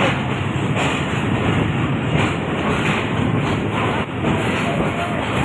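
Passenger train at a station platform: a steady rumble with a low hum.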